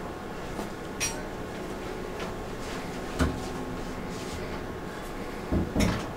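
Handling a wooden door's round metal knob: a few scattered light clicks and taps, then two dull thumps close together near the end.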